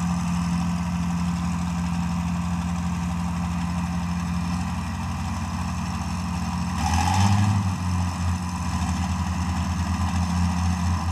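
Diesel engines of rice combine harvesters running steadily. About seven seconds in they rev up hard and settle into a heavier pulsing drone under load, with black smoke from the exhaust, as the machines work to free a harvester sunk in the paddy mud.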